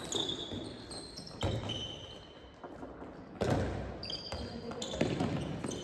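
Handball practice on a gym court: a handball bouncing with dull thuds on the floor a few times, and players' sneakers giving short high squeaks as they run and cut, the sounds carrying in the large hall.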